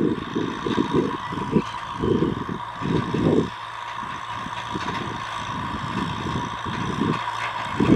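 Kubota M6040SU tractor's four-cylinder diesel engine running steadily under load while it plows. Irregular low rumbles come and go over it, heaviest in the first few seconds.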